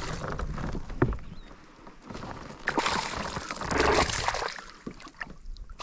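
Water splashing and sloshing beside a kayak as a hooked peacock bass (tucunaré) is fought at the surface, with a sharp knock about a second in and the loudest splashing in the middle.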